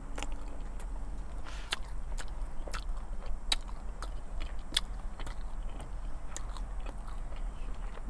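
Close-miked chewing of a chicken salad sandwich: soft wet mouth clicks and smacks scattered irregularly.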